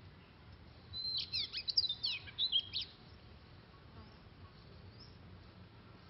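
Oriental magpie-robin singing one short phrase of quick, varied whistled notes lasting about two seconds, starting about a second in.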